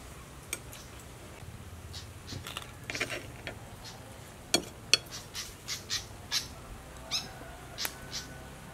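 A metal spoon clinking and scraping on a plate, a run of sharp clicks about three a second near the middle and a few more near the end, while a bird chirps once in the background.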